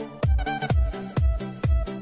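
Electronic dance music with a steady kick drum, about two beats a second, under sustained chords.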